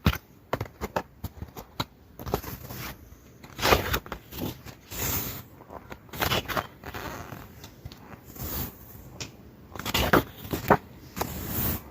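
Paper and plastic rustling with light clicks and taps as an album's photobook and packaging are handled: irregular short crinkles, with no steady sound between them.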